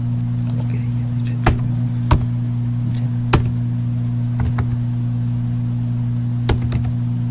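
Steady low electrical hum on the recording, with a handful of sharp computer keyboard clicks as the text is edited, about four of them standing out.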